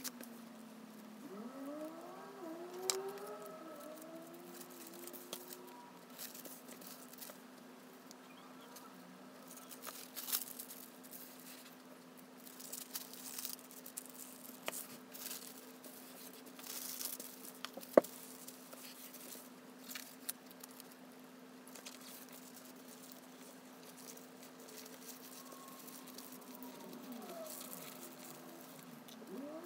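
Tissue paper being handled and folded around stickers: soft, intermittent rustling and crinkling, with one sharp tap about eighteen seconds in. A steady low hum runs underneath, and brief rising-and-falling calls come near the start and again near the end.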